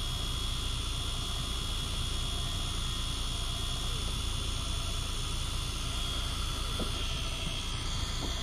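A motor running steadily: a low drone with a thin, high, steady whine over it.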